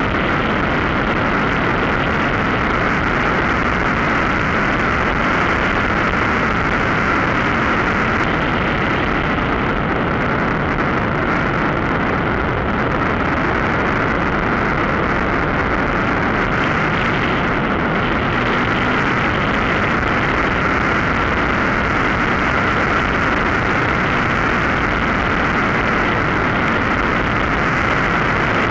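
Mosquito NRG powered hang-glider harness's two-stroke engine and propeller running steadily at cruise power, heard with wind rushing past the wing-mounted camera.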